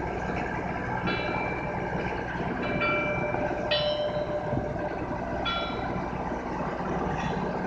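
A channel buoy's bell clangs about five times at uneven intervals as the buoy rocks in the chop, each stroke ringing out briefly. Under it the sailboat's auxiliary engine runs steadily.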